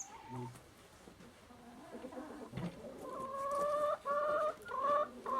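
A chicken calling: a drawn-out, pitched call broken into several slightly rising segments, starting about three seconds in.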